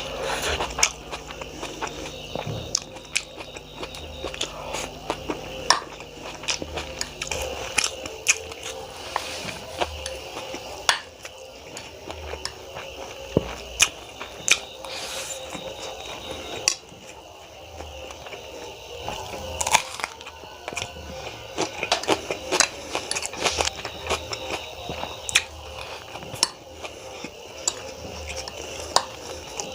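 Close-up eating sounds of chow mein noodles: chewing, small crunches and wet mouth clicks, with sharp irregular clicks of cutlery against a plate.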